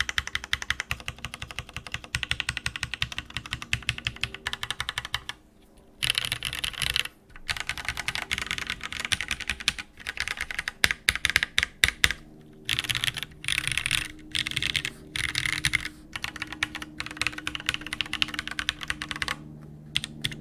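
Typing on a Trinity XT custom mechanical keyboard with Jwick Black linear switches on an FR4 plate, Zeal stabilizers and Keyreative blank keycaps. Rapid keystrokes come in runs, with short pauses about five and a half and seven seconds in.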